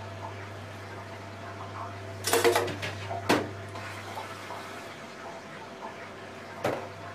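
Fish and chip shop counter sounds while an order of cod and chips is served: a steady hiss over a low hum, with a few short clatters about two and a half and three and a half seconds in and again near the end.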